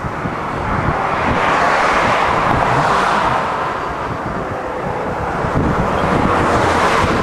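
Traffic passing on a highway: two swells of tyre and engine noise as vehicles go by close to the microphone, over the rumble and buffeting of strong wind on the microphone.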